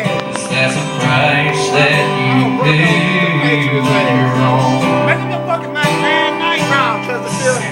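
Live country band playing, with guitar prominent and sliding, bending notes over sustained chords.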